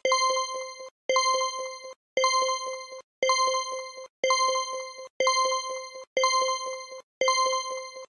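Quiz countdown timer sound effect: a bright pitched tone sounding once a second, each with a run of quick ticks through it, counting down the ten seconds of answer time.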